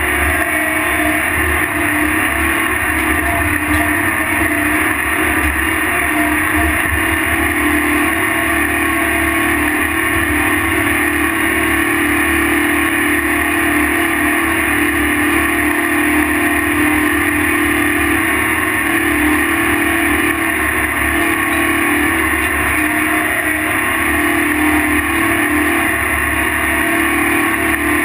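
Heavy diesel engine of a tractor pulling a dirt scraper, running loud and steady at constant speed.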